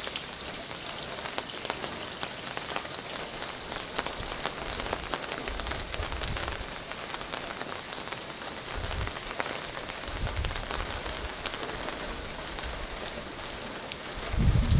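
Steady rain pattering on wet paving stones, mixed with water running from a downspout into a brim-full wooden rain barrel and a jet spilling out of the barrel's lower hole onto the paving. A few brief low rumbles come through, the strongest near the end.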